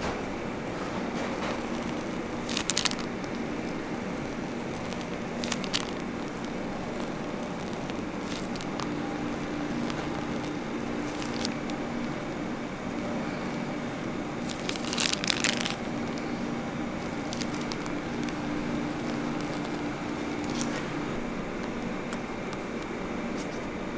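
A plastic piping bag crinkling and squishing in a few short bursts as it is squeezed to pipe whipped cream, over a steady machine hum.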